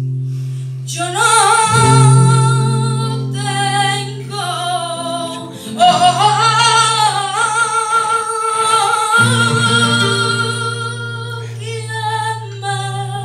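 A woman singing flamenco malagueñas to a nylon-string flamenco guitar. Her voice comes in about a second in, in long held notes that waver and turn in ornaments, over the guitar's ringing low notes.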